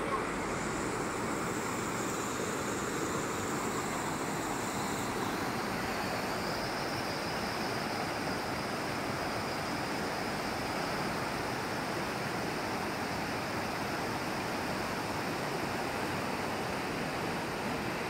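Steady rush of a fast mountain river running over rocks in whitewater rapids.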